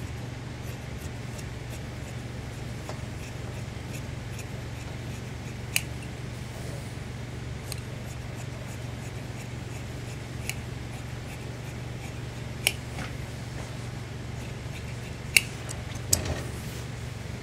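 Large tailor's shears cutting a strip of collar interlining fabric: a handful of sharp snips and clicks of the steel blades spaced a few seconds apart, the loudest pair near the end as the shears close and are set down on the table, over a steady low hum.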